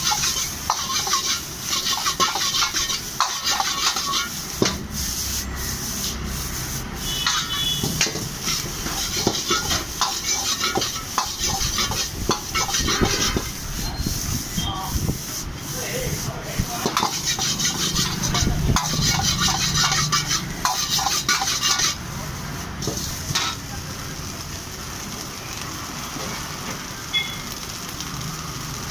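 Egg fried rice being stir-fried in a wok: a long-handled metal ladle scrapes and clanks against the iron pan over the sizzle of the frying rice. The clanking stops a little over twenty seconds in, leaving the sizzle.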